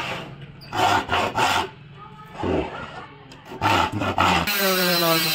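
Irregular scraping strokes of a hand tool working the edge of a freshly cut plywood disc. About four and a half seconds in, a steady pitched drone with many overtones takes over.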